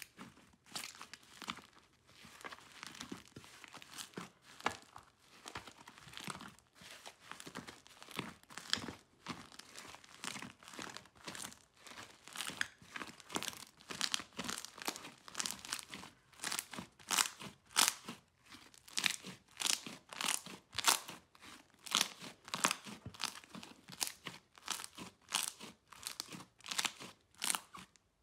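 Thick slime being squeezed and kneaded by hand in a glass dish: a steady run of sticky crackles and pops, about one or two a second, louder in the second half.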